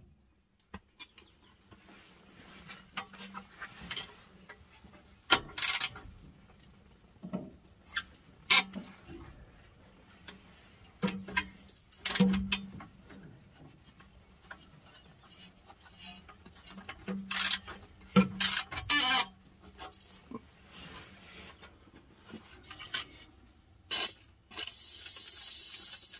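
Ratchet and socket working a torch-heated, rusty exhaust bolt on a 1948 Ford F5 engine: scattered metal clicks and rasps. Near the end, aerosol penetrating fluid is sprayed onto the hot bolt, a steady hiss lasting a couple of seconds.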